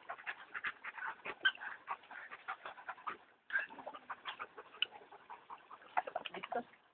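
A dog panting rapidly, breaking off briefly about three seconds in.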